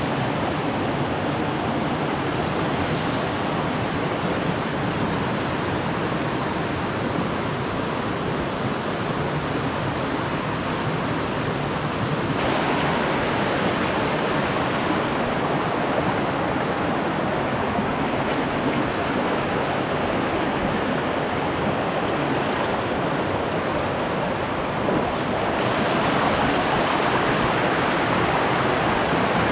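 Mountain creek rushing over rocks in small cascades: a steady full rush of water that gets louder and brighter about twelve seconds in and again near the end.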